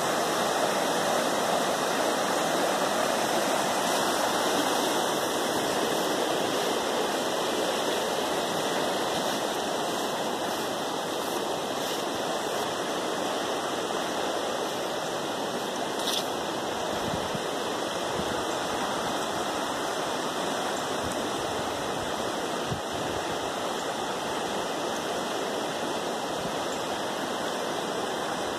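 A river in flood rushing over rapids and submerged branches: a steady wash of fast, high water, a little louder for the first several seconds.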